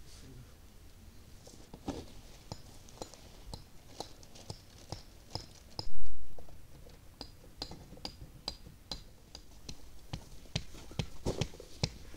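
Scattered light clicks and taps from a dome tent being pitched. Short high chirps repeat about twice a second through the middle. A brief low thump about six seconds in is the loudest sound.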